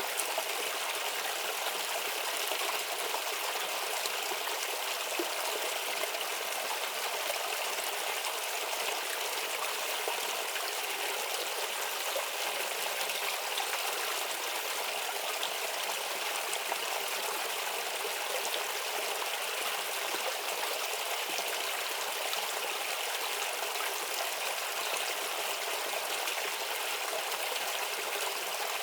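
Shallow stream murmuring steadily: an even, continuous rush of running water with little deep rumble.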